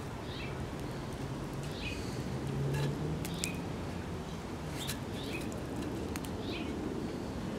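A small bird chirping over and over, short falling chirps every second or two, with a few light clicks and a low steady hum underneath.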